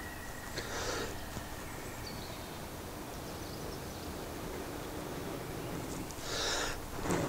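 Two long breaths blown into a tinder bundle around glowing steel wool, one about a second in and a longer, louder one near the end, to fan the ember into flame.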